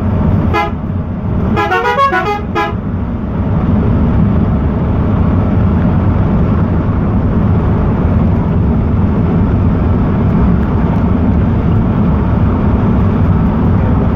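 A vehicle horn gives a few short toots in the first three seconds. Then the Volvo B11R coach's diesel engine and road noise run as a steady low drone at highway speed, heard from inside the cab.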